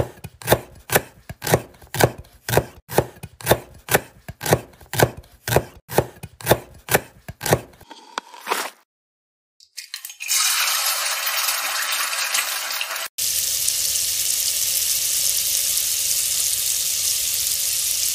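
Kitchen knife chopping garlic on a wooden cutting board, a steady run of strokes about two to three a second for some eight seconds. After a short pause, beaten egg sizzles steadily in a hot frying pan.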